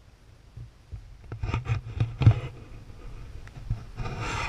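Knocks, clicks and rubbing of a camera in a waterproof housing being handled and turned on its mount, muffled through the case. There is a cluster of sharp knocks about a second and a half in and a scraping rub near the end.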